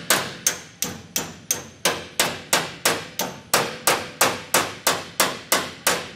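Hand hammer striking the sheet-steel floor area of a car body shell in a steady run of about three blows a second, each a sharp metallic strike with a short ring. The hammering stops at the very end.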